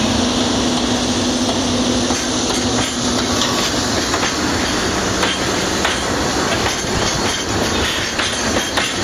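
Freight train rolling past, its wheels clacking over rail joints, with the clicks coming thicker from about three seconds in. A steady low hum fades out early.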